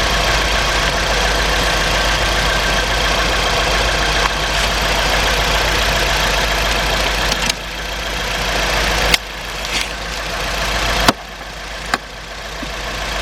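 Steady mechanical drone with a few fixed tones running under everything, and a handful of sharp clicks and knocks from a work light being set up, mostly in the second half; after each knock the drone drops away and slowly builds back up.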